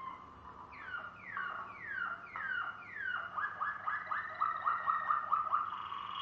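Malinois waterslager canary singing: a string of falling whistled glides, about two a second, turning about three seconds in into a fast run of short repeated notes, about five a second.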